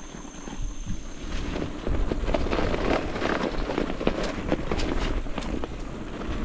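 Bicycle rolling over a rough dirt trail: tyres crunching and the bike rattling in a dense run of small clicks, with wind rumbling on the microphone, louder from about two seconds in.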